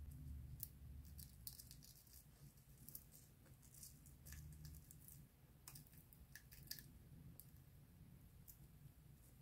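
Faint, scattered crackles and ticks of dry shed skin being rubbed and peeled off a bearded dragon's scales with a thumb, over a low handling rumble.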